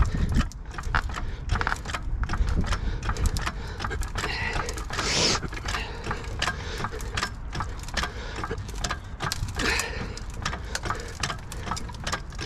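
Hydraulic jack being pumped to lift the rear of a car: a long run of irregular mechanical clicks and knocks from the jack as the car rises.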